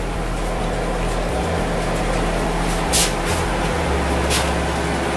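Steady hiss with a low hum underneath, broken by two short sharp clicks about three and four and a half seconds in.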